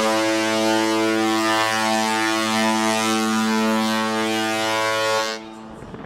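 MS Carnival Glory's ship horn sounding one long, deep, steady blast that cuts off abruptly a little after five seconds in.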